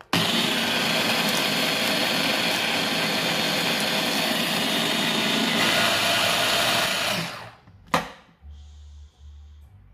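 Electric mini chopper (push-top food processor) running steadily for about seven seconds as it blends oats, apple and egg into a batter, then winding down. A single sharp click about eight seconds in as its lid is lifted off.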